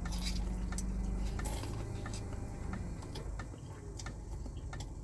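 Slurping ramen noodles and chewing, with two short hissy slurps in the first two seconds and scattered small wet clicks throughout. A low steady hum lies underneath for about the first three seconds.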